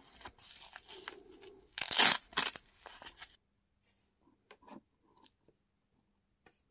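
Hook-and-loop strap on a wrist blood pressure monitor's cuff ripping open and being pressed shut as the cuff is put on, loudest about two seconds in, followed by a few faint small clicks.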